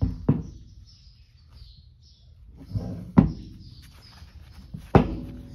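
Metal press tools being set in place on a wooden workbench and a suspension A-arm: three sharp knocks of metal on wood and metal, near the start, a little past three seconds and about five seconds in, the last one ringing briefly.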